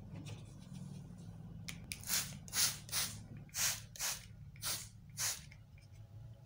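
Handheld plastic trigger spray bottle misting water onto potted cacti: about seven quick hissing squirts, roughly two a second, over a low steady hum.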